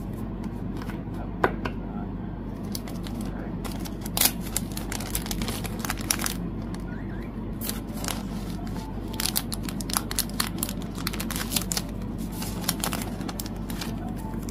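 Unboxing: fan-kit packaging being handled and unwrapped, with plastic and paper crinkling and tearing in a run of sharp rustles and clicks. They come most densely in the second half, over a steady low hum.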